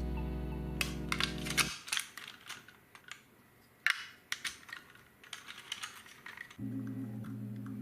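A run of small, sharp clicks and taps from plastic toy car parts being handled and fitted together. Background music plays over the first two seconds, stops, and comes back near the end.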